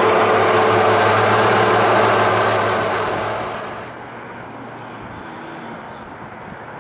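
The 1955 Chevrolet Bel Air's fuel-injected engine idling steadily, heard close up from the engine bay. About three seconds in it fades down to a quieter, more distant engine and road sound.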